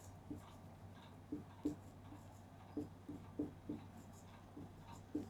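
Handwriting: about a dozen faint, irregular taps and light scratches of a writing implement on a surface.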